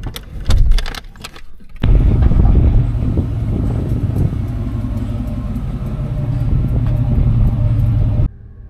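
Vehicle on the move: a loud, steady low rumble of engine and road noise with wind on the microphone, starting and stopping abruptly. Before it come a few knocks and rattles.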